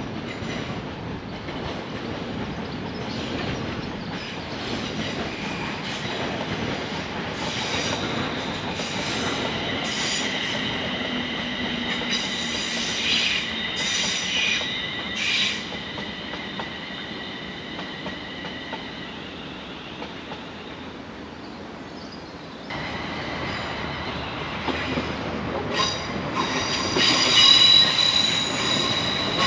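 A train running on the track, its wheels squealing in several high, steady tones over a rumble. The squeal fades out, then after an abrupt change it rises again, louder, near the end.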